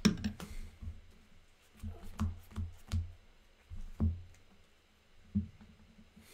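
A scattered series of light knocks and taps on a tabletop, about seven in all, the loudest right at the start: cards and game pieces being handled and set down during a card game.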